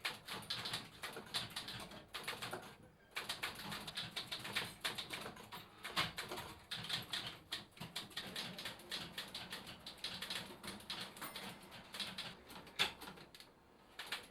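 Manual typewriter typing: a fast, irregular stream of key clacks, with a short break about three seconds in.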